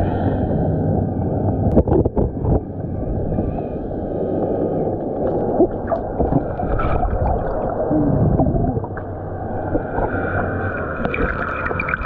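Aiper Seagull Pro robotic pool vacuum running underwater, heard muffled through the water: a steady low motor hum with churning water, and a few knocks about two seconds in.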